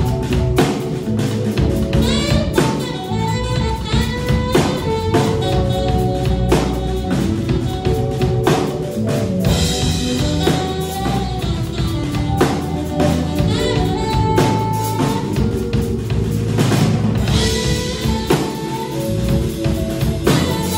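Live jazz-funk quartet playing: electric keyboard, saxophone, electric bass and drum kit, with regular drum and cymbal hits under sustained melodic lines.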